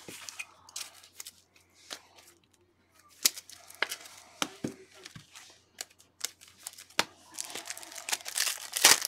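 A trading-card pack's wrapper being handled and torn open, crinkling and tearing. Scattered light clicks and taps of handling come first, and the tearing and crinkling builds near the end, where it is loudest.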